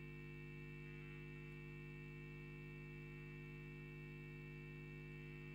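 Faint, steady electrical mains hum from the sound system, several constant tones sounding together without change.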